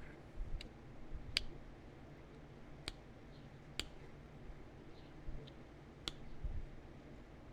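A handful of sharp, isolated clicks, roughly one every second, from knapping tools working the edge of a small heat-treated chert point.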